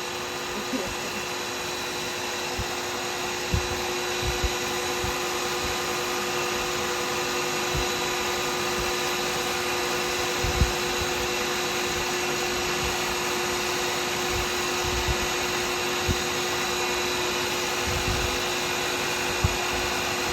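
Wood lathe motor running steadily with a constant hum, with a few short, soft knocks over it.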